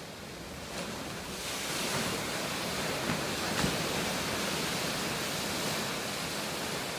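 Waves breaking just offshore: a steady rushing wash that swells a little about a second and a half in.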